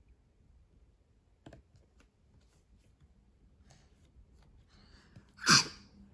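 Quiet room with a few faint taps as a toddler's hand touches a cardboard picture book; about five and a half seconds in, one short loud sound.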